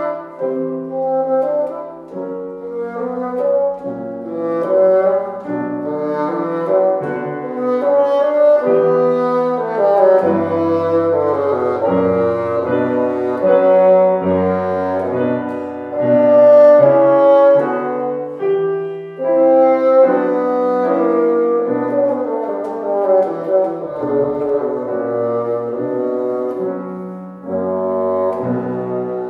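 Bassoon and piano playing a classical concerto movement: the bassoon carries a melody of many short, changing notes over piano accompaniment.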